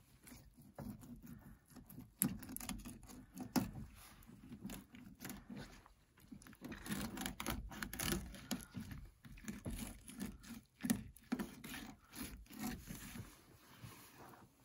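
Fillet knife cutting down a rainbow trout's side with the blade held against the backbone, scraping over the spine and rib bones. The sound is quiet, irregular scraping and ticking, with the fish being handled on the cutting board.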